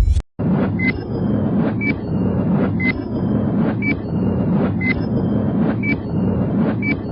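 Countdown timer sound effect: a short high beep with a sharp tick, repeating about once a second over a steady low rumble. It starts after a brief cut to silence near the beginning.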